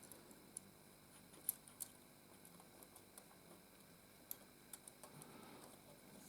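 Near silence with a few faint, scattered clicks and light handling sounds: thin LED light-kit wires being threaded through Lego bricks.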